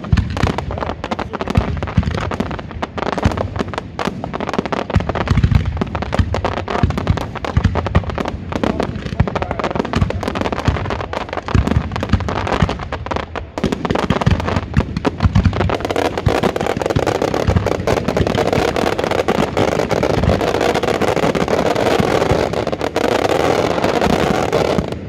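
Aerial fireworks going off in rapid, overlapping bursts and bangs. About two-thirds of the way in the bursts merge into a dense, nearly continuous din, which drops away suddenly at the very end.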